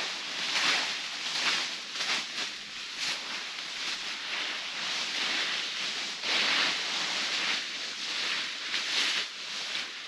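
Dry fallen leaves rustling in uneven, repeated swishes as leaf litter is gathered up.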